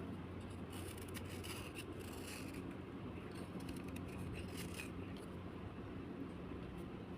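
Slate being scraped: a run of short, scratchy strokes from about a second in until about five seconds in, over a steady low hum.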